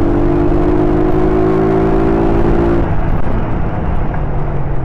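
Honda CG Titan 125's single-cylinder four-stroke engine under acceleration, its note rising steadily, then dropping away about three seconds in. Wind rumbles on the microphone inside the rider's helmet.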